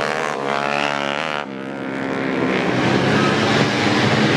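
Tuned 150cc four-stroke underbone racing motorcycles running at high revs. One engine's steady note rises slightly and breaks off about a second and a half in, then several engines blend together and grow louder.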